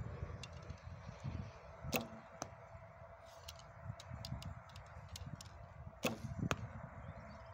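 Recurve bow shot: the bowstring snaps on release about six seconds in, and about half a second later the arrow strikes the target with a second sharp knock. Wind rumbles on the microphone throughout, with a few lighter clicks of the arrow being nocked and handled before the shot.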